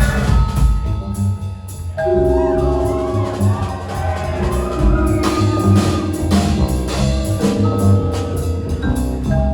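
A rock band playing live: deep bass and drums under held melodic notes that change pitch every second or so, with regular percussive strikes.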